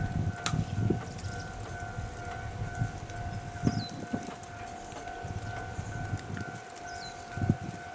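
Japanese railway level-crossing alarm ringing: a steady, repeating electronic ding, over a low gusty rumble.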